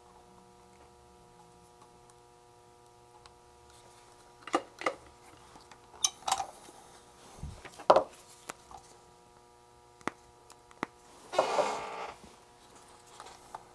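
Scattered clicks and taps of small tools and electronic parts being handled on a workbench during kit assembly, over a faint steady hum. A short scraping rustle comes near the end.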